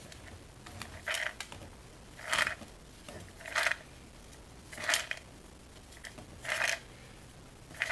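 A heap of small plastic toy figures rattling and sliding inside a clear plastic container as it is tilted and shaken, in five short bursts about a second or so apart.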